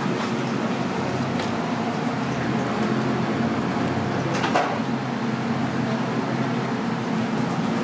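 Steady mechanical hum under a wash of street background noise, with a few light clicks.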